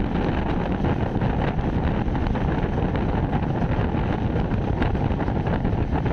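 Steady rumble of a moving passenger train, with wind blowing across the microphone.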